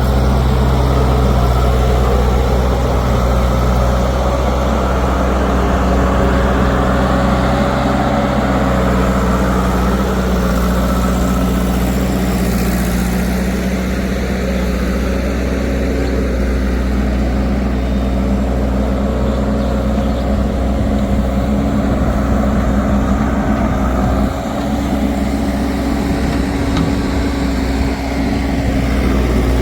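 Heavy diesel engine running steadily at an even, low speed, with only brief small dips in level.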